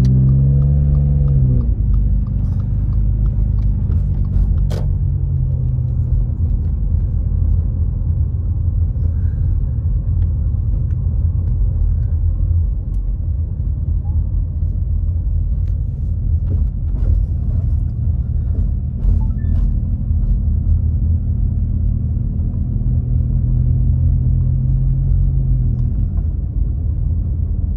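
Car interior noise while driving slowly: a steady low rumble of engine and tyres on the road, heard from inside the cabin. A short whine rises and falls in the first second or so, and a single click comes about five seconds in.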